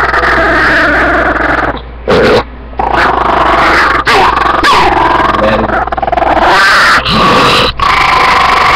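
Small Chihuahua-type dog growling and snarling loudly with its teeth bared, almost without pause, as a hand pokes at its head. There are two short breaks about two seconds in.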